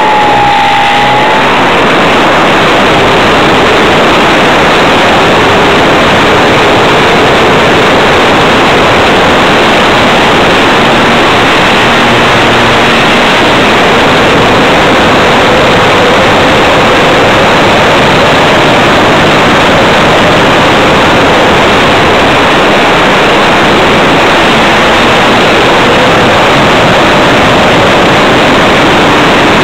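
Radio-controlled Tiger Moth model plane's motor, propeller and rushing air, picked up by a small camera mounted on the plane in flight. The sound is a loud, unbroken hiss with a faint motor tone drifting slightly up and down beneath it.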